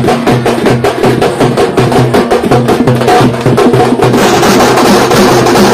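Dappu frame drums beating a fast, steady rhythm of sharp strokes, growing denser and brighter about four seconds in.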